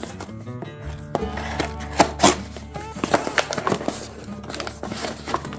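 Cardboard shipping box being cut open with a blade and handled, in a run of sharp scrapes, cracks and rustles, loudest about two seconds in, over background music with sustained low notes.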